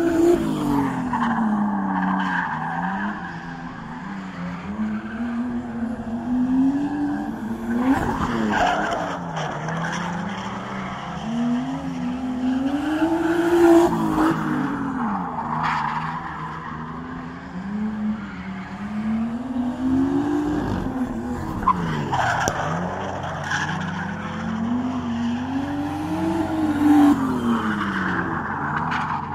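Drift cars sliding around a tarmac track: engines revving up and falling back again and again as the drivers work the throttle, with tyres squealing and skidding through the slides.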